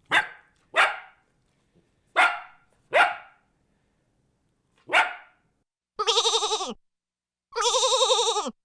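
A dog barking five times in short, separate barks, then two long wavering bleats from a sheep or goat near the end.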